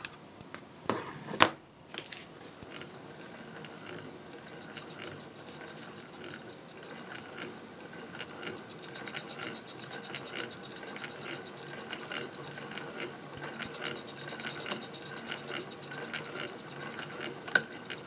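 Hand-crank Singer 201K sewing machine running and stitching, an even, rapid mechanical ticking that starts about two seconds in and carries on steadily. Before it, two sharp snips of scissors cutting the thread.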